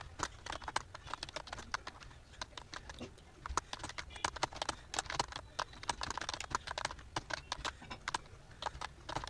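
Typing on a computer keyboard: quick, irregular keystroke clicks, several a second, over a low steady hum.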